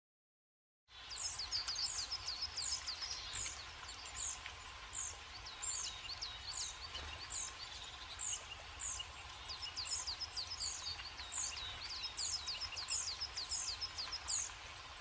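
Tits calling: a steady stream of short, high chirps that slide downward, about two a second, starting about a second in.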